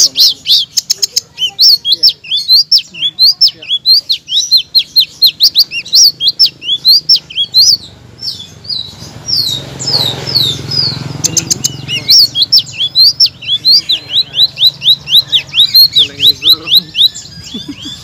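Selendang biru songbird singing loudly: a fast, continuous run of high chirping notes, each a quick sweep in pitch, several a second. The song eases off briefly around the middle, when a low background rumble comes up, then picks up again.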